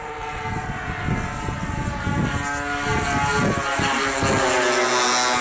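The twin 26cc CRRC petrol engines of a radio-controlled model aeroplane droning overhead, growing louder as it comes closer. There is a low gusty wind rumble on the microphone in the first few seconds.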